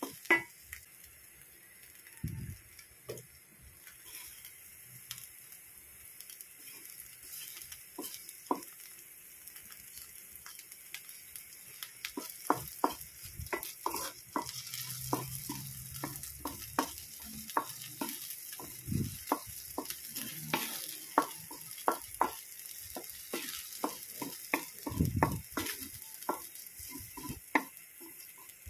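Sardines and egg frying in oil in a metal wok, sizzling steadily, while a wooden spatula scrapes and knocks against the pan. The stirring is sparse at first and grows busy and rapid from about twelve seconds in.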